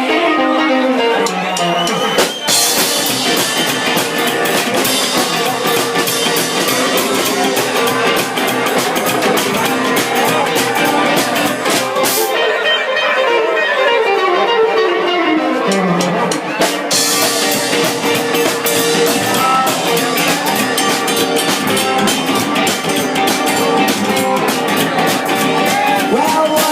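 Live rock and roll band in an instrumental break: a guitar plays descending runs with little drumming at the start and again from about 12 seconds in. Between these, and from about 17 seconds in, drums with cymbals and the full band come in.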